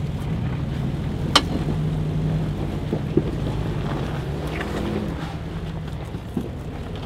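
Jeep engine running at low speed as the Jeep crawls up rock in four-wheel drive, pulling with its front axle only because a rear axle shaft is snapped. A sharp knock about a second and a half in, and a couple of lighter knocks later.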